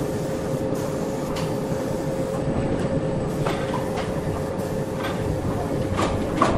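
Steady machinery noise: a low rumble with a constant hum, broken by a few sharp knocks or clicks in the second half, the loudest near the end.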